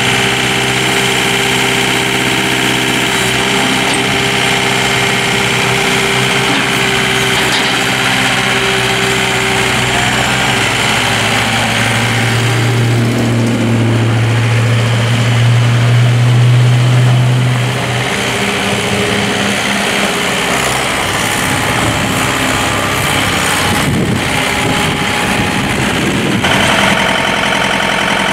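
John Deere 4320 compact tractor's 48-horsepower diesel engine running as the tractor is worked and driven. Its low note grows louder for several seconds about halfway through, then drops back. Near the end it settles to a steady idle.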